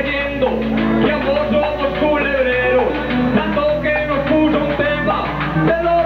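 Guitar accompaniment of Colombian trova paisa, strummed in a steady rhythm, with a man singing a verse over it into a microphone.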